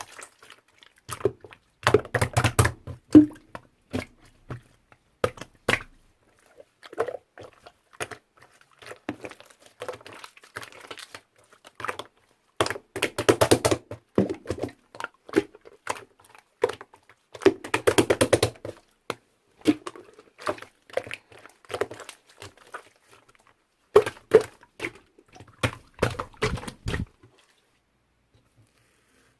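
Slime being squeezed, stretched and pressed by hand, making irregular sticky clicks and air-bubble pops with several dense crackling bursts. The sounds stop a couple of seconds before the end.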